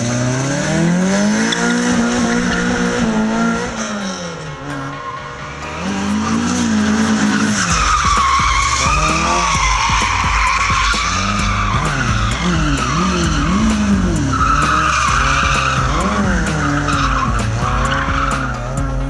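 Toyota Corolla AE86 engine revving up and down as the car drifts, with its tyres squealing in long, wavering squeals from about eight seconds in.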